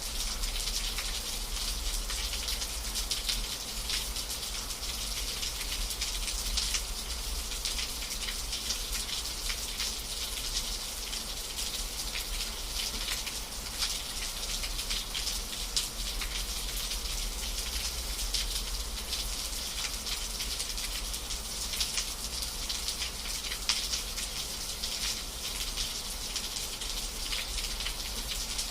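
Steady rain, with many individual drops ticking through a dense hiss and a low, steady rumble underneath.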